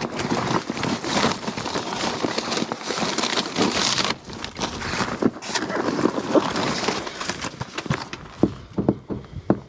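Paper bag and plastic wrapping rustling as a food order is lifted out of an insulated delivery bag, with scattered clicks and knocks from the handling. The rustle is loudest about four seconds in.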